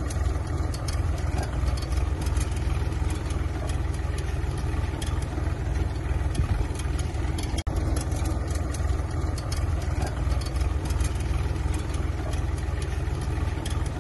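Tractor engine running steadily while pulling a nine-row seed-cum-fertilizer drill through tilled soil. The sound cuts out for an instant about halfway through.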